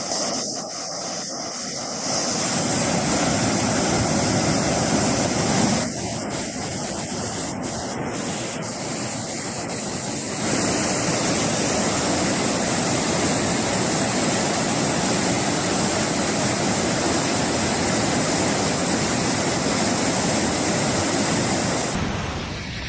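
Floodwater rushing: a steady, even rush of noise that jumps abruptly in level about two, six and ten seconds in.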